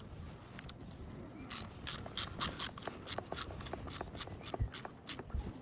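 A run of light metallic clicks and taps, about three a second and unevenly spaced, starting about a second and a half in: hand tools and brake caliper parts being handled and fitted during reassembly of a motorbike's front brake.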